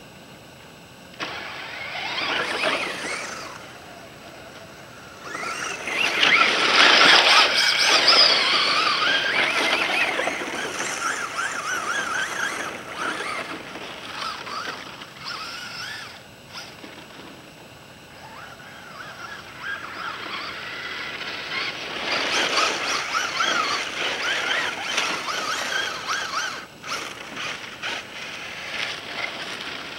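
Radio-controlled Ford F-150 Raptor model truck driving over loose gravel and sand. Its motor whines, rising and falling in pitch with the throttle, over the grit of its tyres. It comes in three runs, the longest and loudest a few seconds in, with quieter pauses between.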